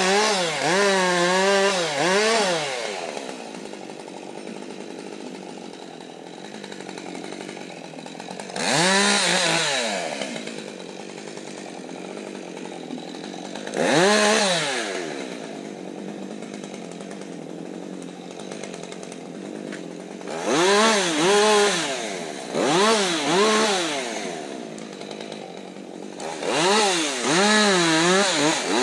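Husqvarna 550 XP Mark II two-stroke chainsaw idling and being revved up in short repeated bursts, the engine note rising and falling with each blip, with steady idling between the bursts.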